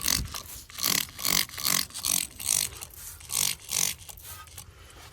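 Hand spray bottle squirting aluminum cleaner and brightener onto an ATV's exhaust in a run of short hissing sprays, about eight of them. They come close together at first and thin out near the end.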